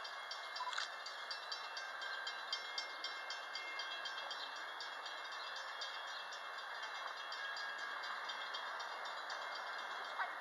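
Loaded stone freight train rolling past, with steel wheels clicking and clattering over the rails in a fast, uneven patter.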